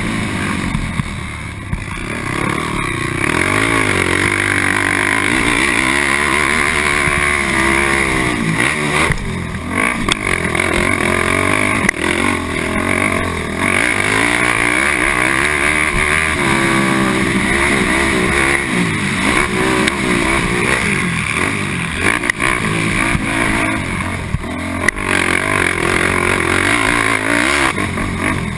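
Honda TRX450R quad's single-cylinder four-stroke engine racing around a motocross track, revving up and down with the throttle and gear changes. It drops back briefly about two seconds in. A couple of sharp knocks come partway through and again near the end.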